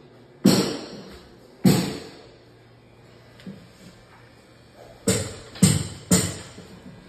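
Five sharp thumps at uneven intervals, each ringing on briefly: two in the first two seconds, then three in quick succession about five seconds in.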